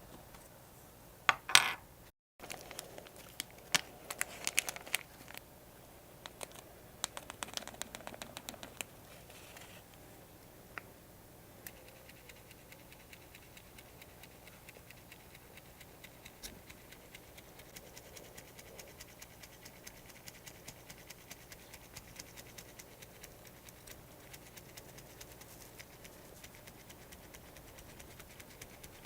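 Small-scale hand work on a diecast model car: scratching and scraping with rattling clicks of small metal parts. One loud scrape comes about a second in. The clicks grow sparse after about ten seconds, leaving faint ticking.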